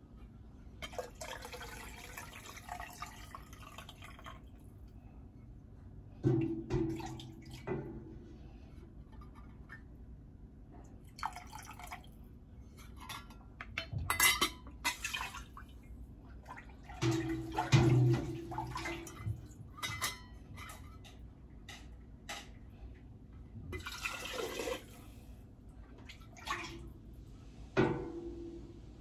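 Hot chicken broth being ladled through a stainless steel canning funnel into glass quart jars: liquid pours in several short spells, with sharp knocks and clinks of the ladle against the pot and funnel now and then.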